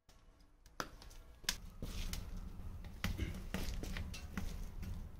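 Wood fire crackling in the firebox of a homemade sand-battery stove: irregular sharp pops and snaps over a low, steady rumble, starting about a second in.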